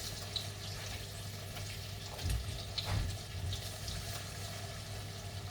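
Chicken pieces sizzling in a frying pan: a steady hiss, with a couple of low knocks a little after halfway.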